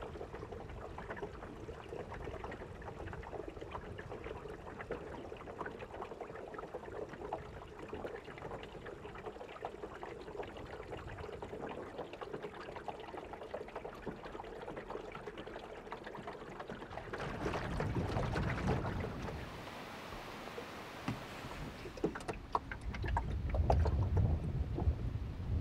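Water lapping and trickling around a small paddled boat, a steady wash dotted with small drips and splashes. Gusts of wind buffet the microphone about two thirds of the way through and again near the end.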